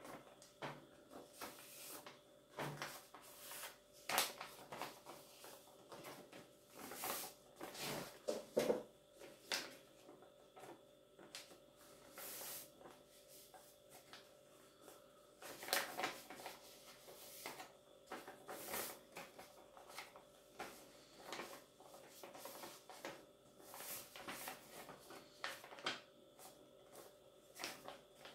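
Sheet of paper being handled and folded into a paper airplane: irregular short rustles and crinkles as the paper is turned and the folds are pressed, with quieter gaps between.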